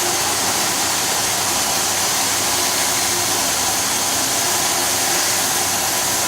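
CNC plasma cutting torch running a cut: a steady, loud hiss that does not change.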